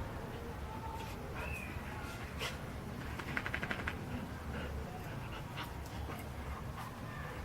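Dog whimpering, several short high whines, mixed with scattered sharp clicks and knocks and a quick rattle about three and a half seconds in.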